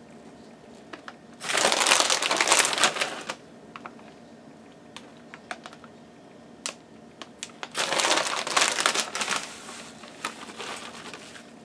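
Plastic bag of shredded mozzarella crinkling in two bursts, about a second and a half in and again about eight seconds in, as cheese is pulled out and shaken from it, with a few light clicks between.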